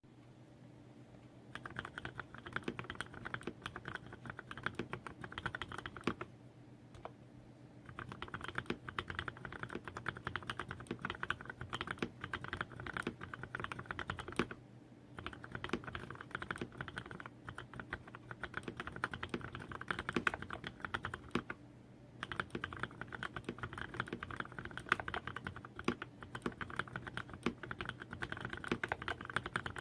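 Typing on a Varmilo VA68M mechanical keyboard with lubed Cherry MX Black linear switches, 58 g springs, an aluminium plate and PBT keycaps: rapid keystrokes in four runs, broken by short pauses about a quarter, a half and three quarters of the way through.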